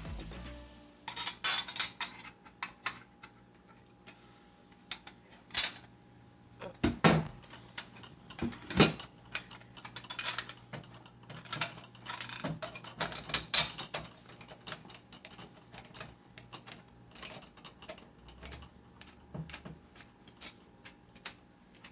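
Steel parts of a chainsaw mill clanking and knocking as they are handled and fitted together, then a ratchet wrench clicking in quick, even strokes as a bolt is run in.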